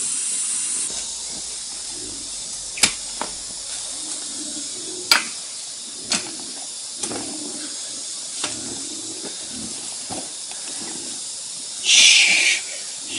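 A hoe chopping into loose dry soil: several sharp strikes a second or two apart, over a steady high hiss. Near the end there is a brief loud scraping rustle.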